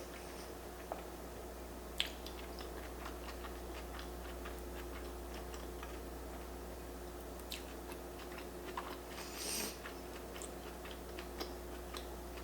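Close-up mouth sounds of a person chewing a sushi roll: faint wet clicks and smacks over a steady low hum, with a short breathy puff about nine seconds in.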